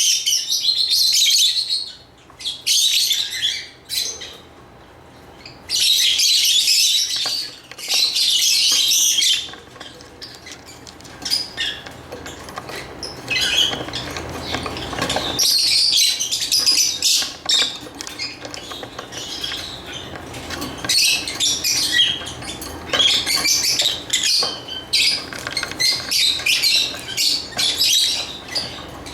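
Lovebirds chirping in loud bouts of rapid, high-pitched chatter, each lasting one to three seconds, for the first ten seconds or so. After that come shorter, more scattered chirps.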